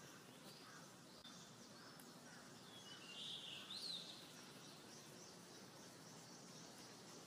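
Near silence: faint background hiss with a few distant bird chirps, short high calls about three to four seconds in.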